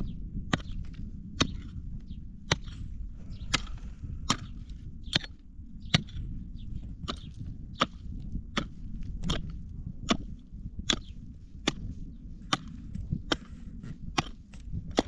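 A hand tool striking wood in a steady rhythm, a little more than one blow a second, over a low steady rumble.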